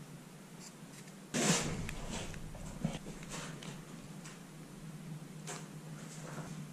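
Hands pressing and adjusting a glued ceiling cornice molding against the wall: a sudden scrape about a second in, then soft rubs and clicks over a low steady hum.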